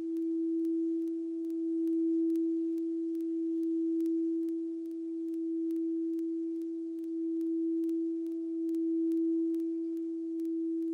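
Moldavite-infused quartz crystal singing bowl tuned to E, sung by circling a mallet around its rim: one steady pure tone with a fainter octave above, gently swelling and easing every couple of seconds.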